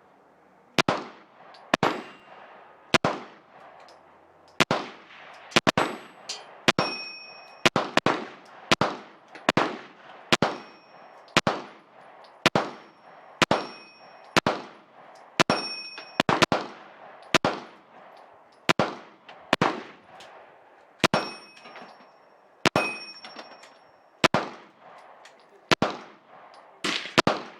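Gen 4 Glock 19 9mm pistol firing about two dozen single shots at a steady pace of roughly one a second, each with a short echoing tail. Several shots are followed by a brief high metallic ring.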